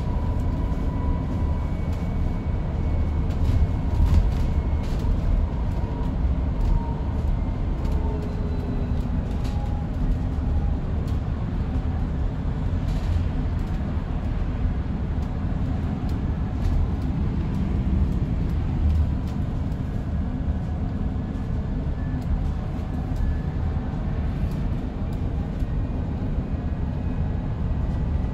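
Inside the lower deck of an Enviro400EV battery-electric double-decker bus on the move: a steady road and tyre rumble with faint whining tones that drift a little in pitch. Scattered clicks and rattles from the cabin come through, a few of them a few seconds in and again about halfway through.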